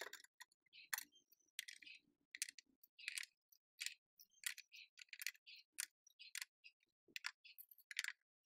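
Wood-handled chisels being pressed one by one into the clips of a tool rail on a wooden door panel: a series of sharp clicks and light knocks, about one or two a second.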